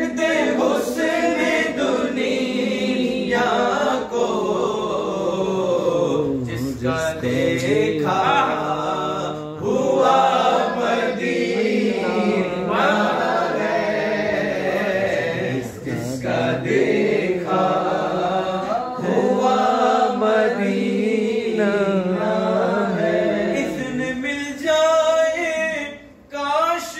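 Men's voices singing a naat unaccompanied, a slow melody with long, wavering held notes.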